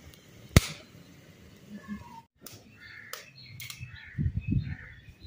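Crows cawing in short calls, with one sharp pop from a wood fire about half a second in and a few low thumps near the end.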